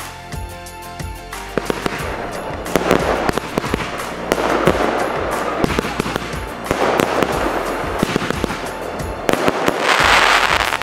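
Fireworks going off: rapid crackling pops begin about a second in, with several swells of crackle, the loudest near the end. Background music plays underneath.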